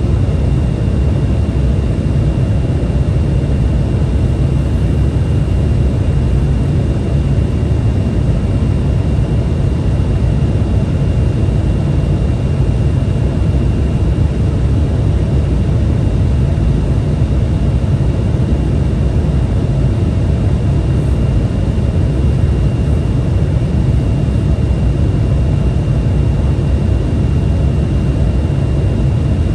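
Steady cabin noise inside an Embraer 175 jet in flight: a constant deep rumble of engines and airflow with a thin high whine held on one note. It holds level throughout, with no thumps or changes in thrust.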